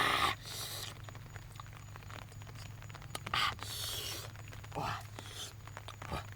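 Several short scraping, rustling noises and scattered light clicks over a steady low hum.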